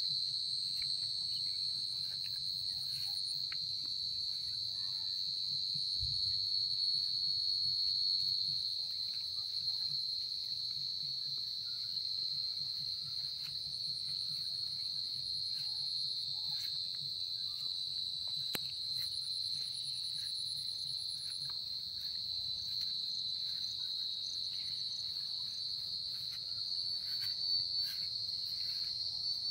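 Crickets trilling in a steady, continuous, high-pitched chorus, with a fainter and higher insect buzz that comes and goes.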